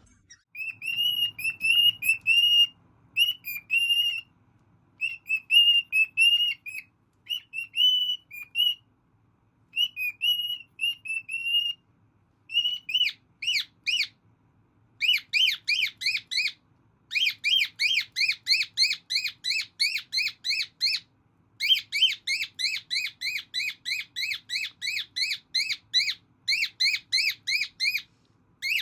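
Cockatiel whistling. It starts with short warbling phrases, then from about halfway it switches to fast runs of repeated rising-and-falling whistled notes, about four a second, each run lasting a few seconds.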